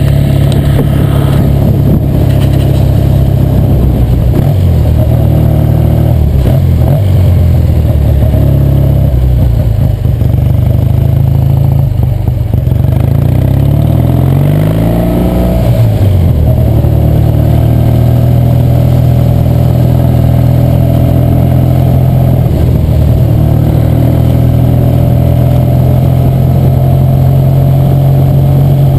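1966 Triumph TR6R Trophy's 650cc vertical-twin engine running as the motorcycle is ridden, its note rising and falling with the throttle. Just past the middle the revs climb over a couple of seconds, then drop back sharply.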